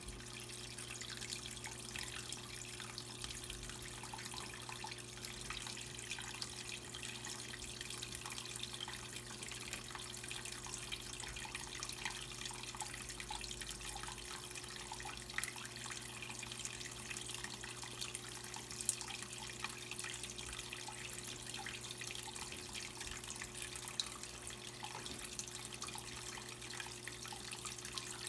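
Water running and splashing in the tub of an Electrolux Prosdócimo washing machine during a rinse, steady throughout with small drips and splashes and a faint steady hum underneath.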